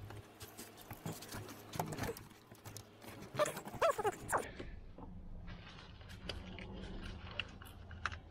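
Small clicks and rustles of gloved hands handling a plastic electrical connector and wiring harness, with a few short squeaks about halfway through.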